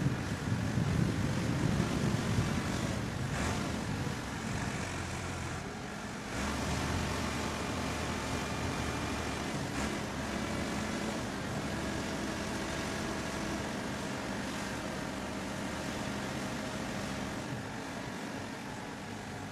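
Diesel engine of heavy road-construction machinery running steadily, with wind buffeting the microphone in the first few seconds. The engine note shifts about six seconds in.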